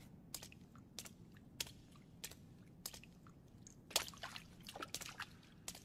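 Faint footsteps on a wet floor, about one step every two-thirds of a second, then a cluster of wet squelching sounds about four seconds in as a shoe steps through blood.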